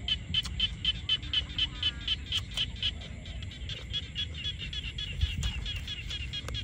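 Rhythmic animal calls, about five a second, repeating steadily over a continuous high drone.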